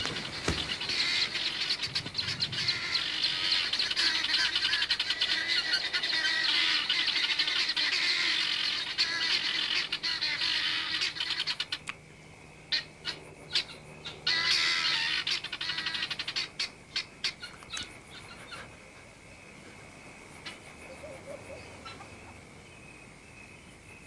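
A flock of guineafowl giving harsh, rattling alarm cackles, many birds at once, raised against a hunting predator. The chorus is dense for about twelve seconds, flares briefly once more, then thins to scattered single calls.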